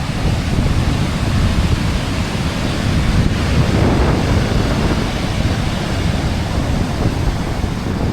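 Ocean surf washing up on the beach, with wind buffeting the microphone.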